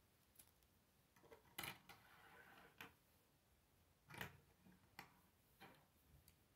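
Plastic K'Nex pieces clicking and clacking faintly as they are picked up off a wooden table and snapped together: several separate clicks, the loudest about one and a half seconds in and just after four seconds.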